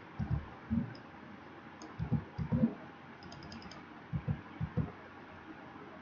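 Computer keyboard keys being pressed in short clusters of a few dull strokes, with pauses between, while code is edited.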